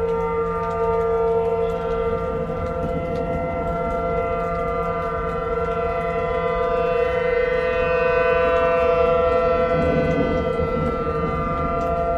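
Outdoor warning siren sounding a steady tone for a severe weather warning, with a fainter higher tone sliding in pitch around the middle.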